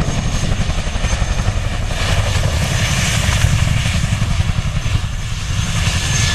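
Boeing CH-47 Chinook tandem-rotor helicopter flying, its rotors beating in a loud, fast, steady thudding with a rushing noise over it and a faint thin high whine.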